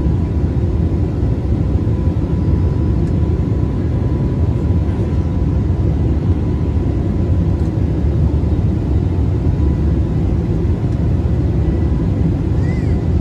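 Steady cabin drone of an Airbus A320 airliner in flight, heard from a window seat: a deep, even rumble of the engines and airflow with a faint steady whine above it.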